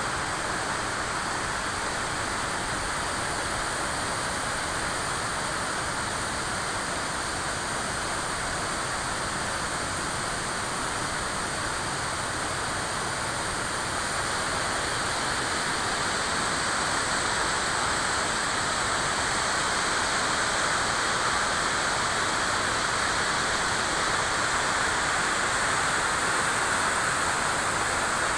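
River water rushing in a steady, even stream, growing slightly louder about halfway through.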